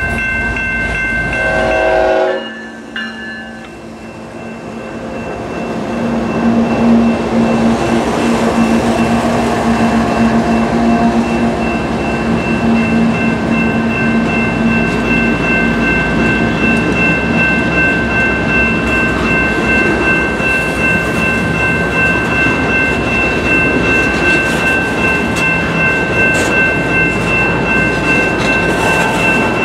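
Diesel freight train passing close by. The sound drops suddenly about two seconds in, then builds as an Iowa Interstate train led by GE ES44AC diesel locomotives approaches with its engines running. Its long string of tank cars then rolls by with a steady rumble, over which several steady high-pitched tones ring.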